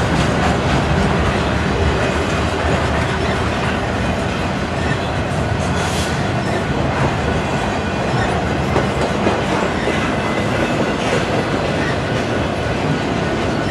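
Intermodal freight train passing, its well cars loaded with highway trailers: a steady rumble and clatter of steel wheels rolling on the rails.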